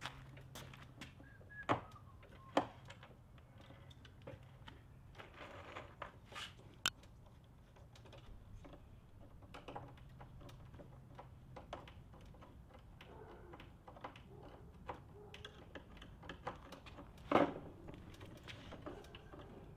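Hand screwdrivers turning screws into a particleboard wardrobe door to fit the hinges: irregular small clicks and ticks, with a few louder knocks about two seconds in and near the end.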